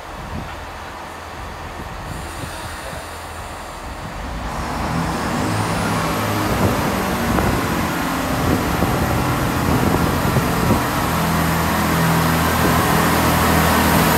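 Class 165 diesel multiple unit pulling out of the station. Its diesel engines run quietly at first, then open up about four and a half seconds in as the train moves off, and the engine and running noise grow steadily louder as the carriages pass close by.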